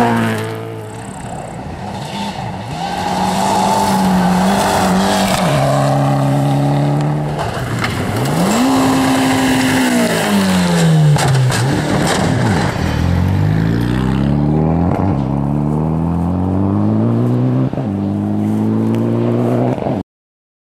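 Rally cars at full speed on a gravel stage. The engines rev hard and change gear, with gravel spraying. Near the start a car passes with a falling pitch. In the second half a turbocharged Mitsubishi Lancer Evolution accelerates through several gears, the pitch climbing repeatedly, and the sound cuts off suddenly near the end.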